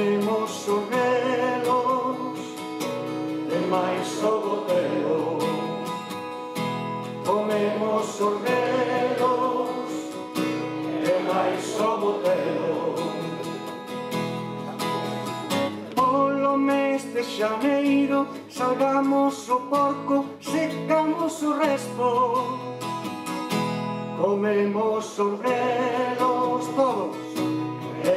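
A man singing to his own strummed acoustic guitar, a steady strumming rhythm under the voice.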